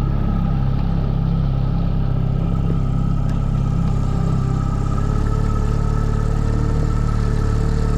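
Outboard motor on a small inflatable boat running steadily at trolling speed, with a slight shift in its tone about five seconds in.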